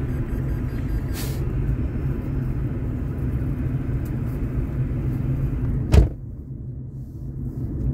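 Vehicle running along the road under a heavy load of full honey supers, a steady low engine and road rumble. About six seconds in there is a single sharp knock, after which the noise is quieter and duller for a moment before building again.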